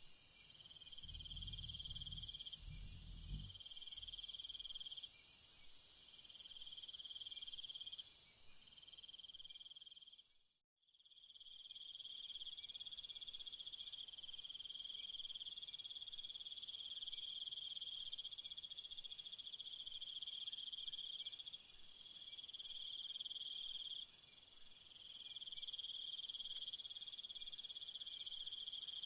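Night insect chorus of crickets trilling steadily, with high overlapping trills that swell and fade every few seconds. A low rumble sits under it near the start, and the whole sound fades to silence about ten seconds in, then comes back.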